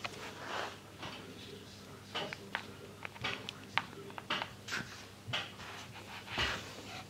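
A hand moving close to the microphone: a string of sharp clicks and short scrapes, with a longer rustle about half a second in and the loudest rustle near the end.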